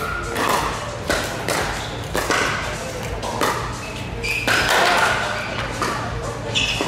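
Pickleball paddles striking a hard plastic pickleball in a doubles rally: a series of sharp pocks, roughly one a second, each ringing briefly in a large hall.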